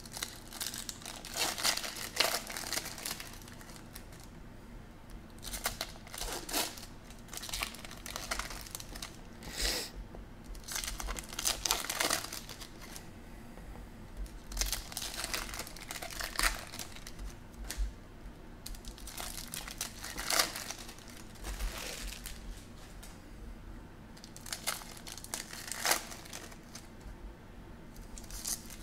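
Foil wrappers of Topps Chrome baseball card packs crinkling and being torn open by hand, in irregular bursts, with stiff cards being handled.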